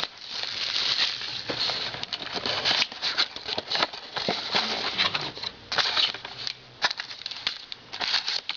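Crinkling and rustling of plastic shrink-wrap and cardboard, with many small irregular clicks, as a sealed box of trading-card packs is opened and the packs taken out.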